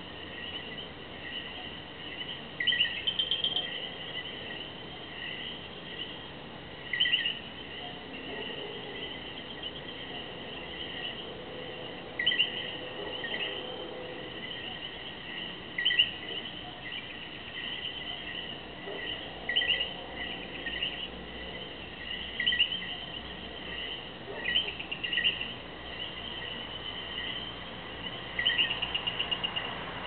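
Common coquí frogs calling at night: short two-note calls, a lower note then a higher one, repeating every second or two over a steady high-pitched chorus of frogs and insects.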